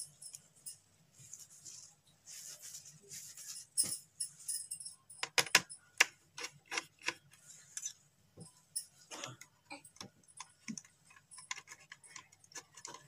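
Irregular clicks and taps of a red phase wire and fingers against plastic switch bodies and their screw terminals while the wire is routed to a switch, with a short scraping rustle about two seconds in and a quick run of louder clicks about five seconds in.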